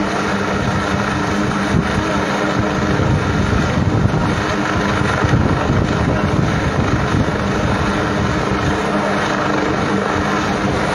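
Helicopter hovering over the valley: a steady rotor and engine drone.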